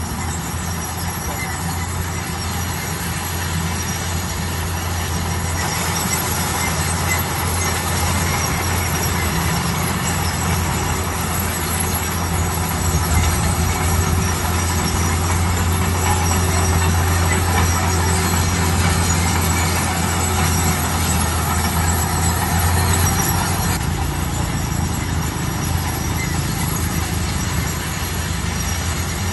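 Bulldozer working: its diesel engine runs with a steady low hum. Metallic squealing and rattling from the steel tracks run with it, a little louder through the middle.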